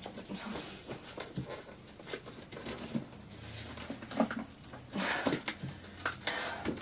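Cardboard box being torn and picked open by hand: irregular scratching, ripping and crinkling of card and paper, with a few short strained grunts about four and five seconds in.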